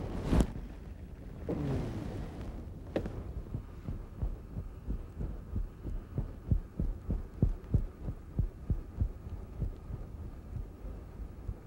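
A spinning rod swished through a cast, a click about three seconds in, then a run of soft low thumps about three a second while a pencil-type topwater lure is twitched back across the surface.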